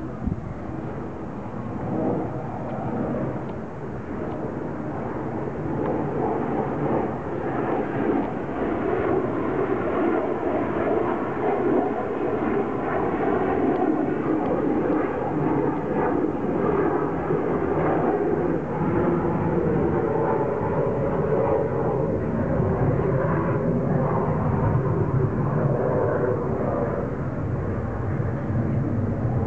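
Steady engine drone that slowly grows louder.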